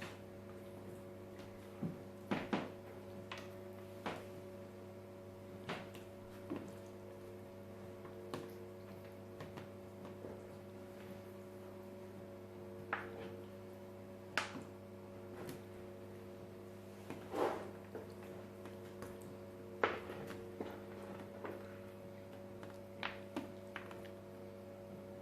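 Scattered soft clicks and knocks as marinated quail pieces are placed into a baking dish, over a steady appliance hum.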